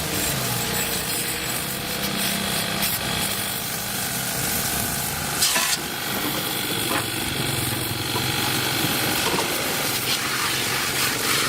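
Steady hissing spray, with a couple of brief knocks about five and a half and seven seconds in.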